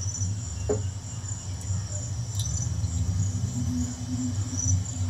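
Insects chirring steadily in a continuous high tone, over a low steady hum.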